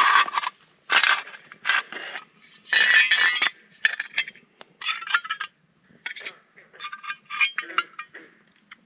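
A series of short scraping and clinking sounds from metal being handled, about a dozen irregular strokes with a light ringing in some of them.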